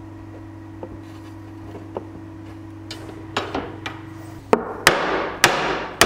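Hammer blows on the side panels of a freshly glued wooden cabinet carcass, knocking them flush where the biscuit joints left the boards misaligned. A few light knocks come first, then about four hard blows in the last second and a half, each ringing out. A steady hum underneath stops as the hard blows begin.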